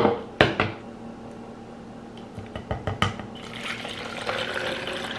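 Two sharp plastic clicks as a shaker bottle's lid comes off, then water poured from a pitcher into the plastic shaker bottle, the pour starting about three and a half seconds in.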